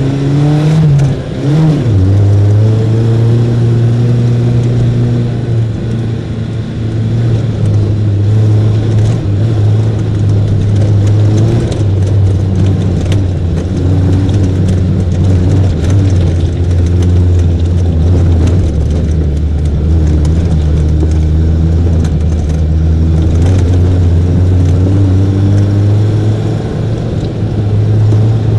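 Quaddragon off-road car's engine running under load on a rough track, heard from inside the car. Its note dips and recovers about a second and a half in, then shifts up and down a few times, with knocks and rattles from the bumpy ground over it.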